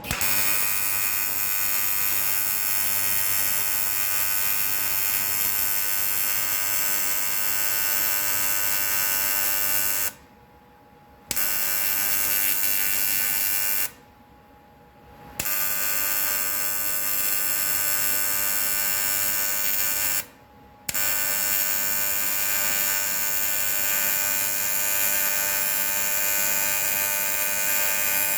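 Welding arc on aluminum pipe, a steady electric buzz with hiss, struck at the start and broken off three times for a second or so, about a third of the way in, near the middle and about two-thirds in, before restriking each time.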